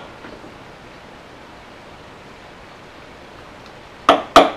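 Faint steady hiss, then about four seconds in two sharp hammer taps on a center punch set against the sheet-steel B-pillar of a 1975 VW Rabbit. The punch is marking the end of a fatigue crack as a starting point for a small drill bit.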